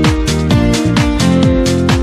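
Background electronic dance music with a fast, steady beat.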